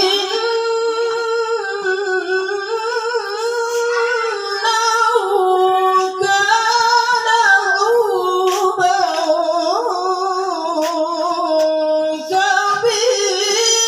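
A woman reciting the Qur'an in a melodic tilawah style, drawing out one long, ornamented phrase whose pitch wavers and slides. There is a brief pause about twelve seconds in before the next phrase starts.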